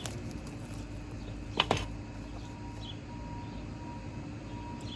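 Two sharp clicks close together about one and a half seconds in, from AirPods packaging being handled, over a steady low background hum.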